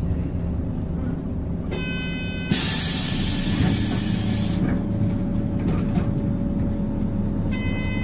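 Mitsubishi city bus heard from inside the cabin, its diesel engine idling under a buzzing warning tone that lasts under a second. The tone is followed by a loud, sudden hiss of compressed air that dies away over about two seconds, and the tone sounds again near the end.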